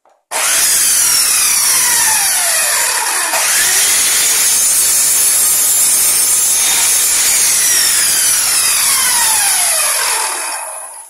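Electric mitre saw cutting through a length of timber. Its whine falls in pitch twice, then winds down and stops near the end.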